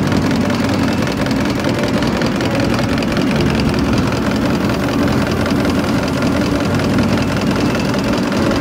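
Denso rotary diesel injection pump turning on a calibration test bench: steady mechanical running with a fast, even ticking.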